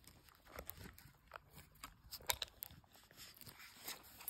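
Hands handling a plastic cup and its lid close to the microphone: faint, scattered clicks and scrapes of plastic, the sharpest about two seconds in.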